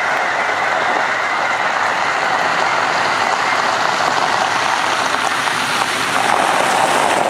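A large flock of birds calling all at once, their calls merging into a dense, steady din.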